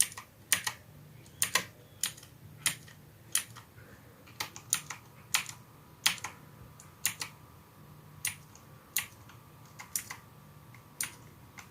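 Keys of a Redragon K552 mechanical keyboard with clicky blue switches, pressed one at a time. The sharp clicks come about one or two a second at uneven intervals, not as continuous typing.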